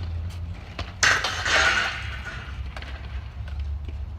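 Kick scooter hitting and scraping along a grind rail or ledge: a sudden loud clatter about a second in that trails off over about a second, over a steady low rumble.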